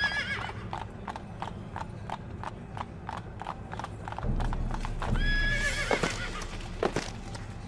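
Horse hoofbeats, a steady run of about four to five a second, with a horse neighing at the start and again around five seconds in. A low rumble joins about four seconds in.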